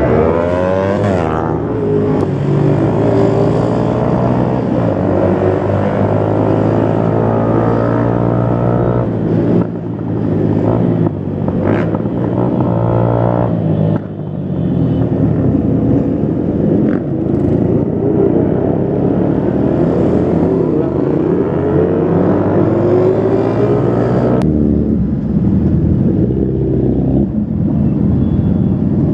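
Motorcycle engines running on a group ride, their revs rising and falling in repeated upward glides as they accelerate through the gears. A few brief sharp knocks break in around ten to fourteen seconds in.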